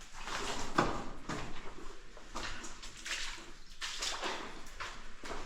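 Footsteps wading through shallow water, each step a short splash, in a flooded mine passage.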